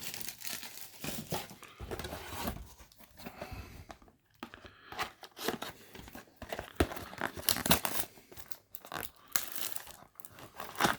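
Cardboard and plastic packaging of a small trading-card box being torn open and crinkled by hand, in irregular rustling and crackling bursts with a short pause partway through.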